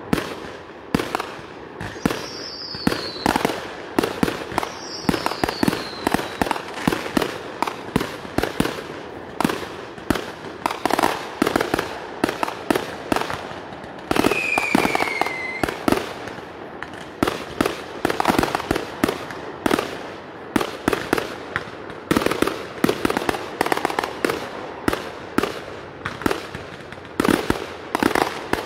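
Fireworks going off in a rapid, continuous string of bangs and crackles, with a few falling whistles about 2, 5 and 15 seconds in.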